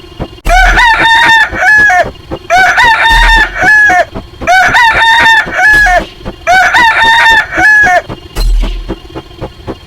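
A rooster crowing sound effect, the same crow played four times about two seconds apart, over a quieter background beat of ticks and low thumps.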